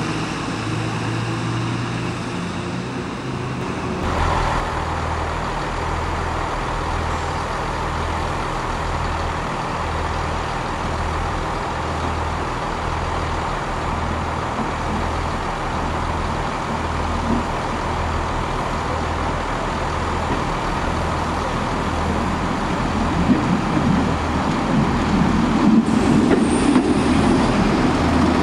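A diesel bus pulls away for the first few seconds. Then a Class 121 'bubble car' diesel railcar's underfloor engine runs at the platform with a slow, even throb about once a second, the sound growing louder near the end as the train moves off past.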